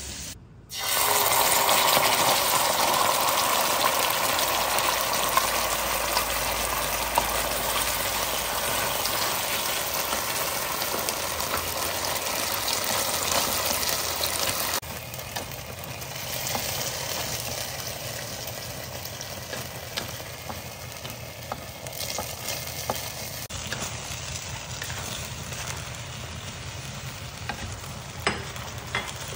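Ketchup-based sweet and sour sauce sizzling loudly in a hot wok as a spatula stirs it, the hiss starting suddenly about a second in. Near the middle it drops to a quieter sizzle, with the spatula clicking and scraping against the wok as fried pork pieces are tossed in the sauce.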